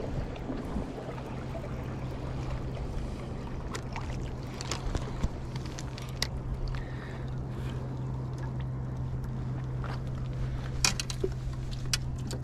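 Water lapping against jetty rocks under a steady low hum, with scattered sharp clicks and knocks from handling a spinning rod and reel while landing a herring.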